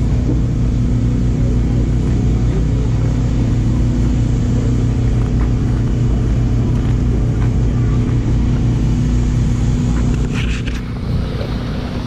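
A steady, low engine hum at constant speed, easing a little near the end with a few clicks.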